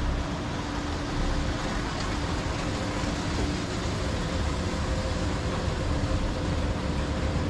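Düsseldorf SkyTrain suspended monorail running: a steady low rumble and hiss with a few faint steady hums.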